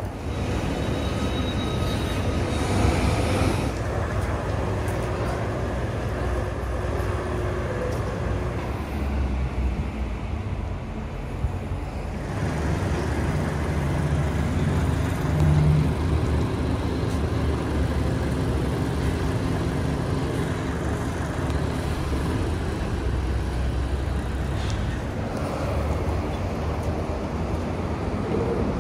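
Road traffic on a busy city street: a steady rumble of passing cars and buses, swelling louder about three seconds in and again about fifteen seconds in.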